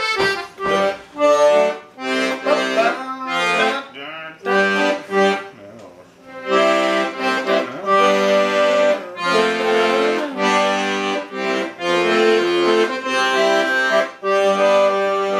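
Vintage Italian piano accordion playing a tune by ear, sustained reedy chords and melody in short phrases with brief breaks between them.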